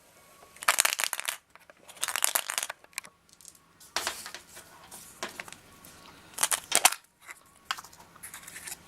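Short bursts of crinkling and rustling as a toy surprise egg is handled and opened, four or five times with quieter handling in between.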